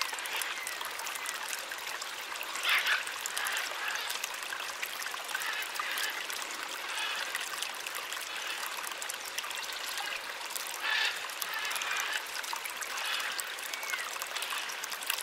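Water steadily trickling and splashing at the bottom of a hand-dug well, with a couple of brief louder splashes about three seconds in and again near eleven seconds.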